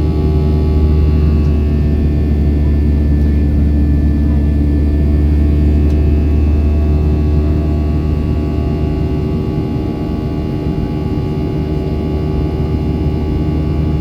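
Steady drone of a Boeing 737-800's CFM56 jet engines, with several steady hum tones layered over a deep rumble, as heard aboard the aircraft.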